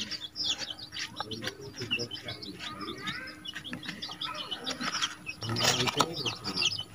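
Fingers mixing turmeric-coated snail meat on a turmeric leaf: a run of small wet clicks and ticks, with birds chirping in the background. Near the end the leaf rustles louder as it is lifted to be folded.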